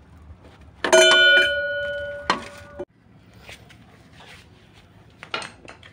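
A steel propeller shaft is set down on a tiled floor. About a second in there is a loud metallic clank that keeps ringing with a steady tone, then a second clank that cuts off abruptly, followed by a few light clicks.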